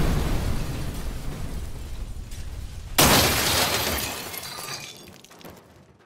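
An explosion's rumble dying away, then a second sudden crash about three seconds in, with glass shattering, that also fades out.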